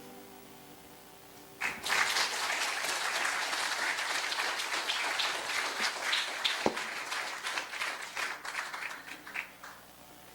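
Congregation applauding, starting about one and a half seconds in, thinning to scattered claps near the end and stopping.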